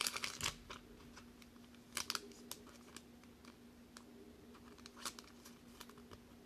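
Faint handling of a trading card and a clear plastic card sleeve: a few soft plastic rustles and clicks at intervals as the card is slid into the sleeve. A steady low hum runs underneath.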